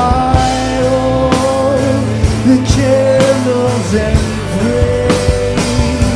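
Live rock band playing a song, with held, sustained notes over a steady drum beat.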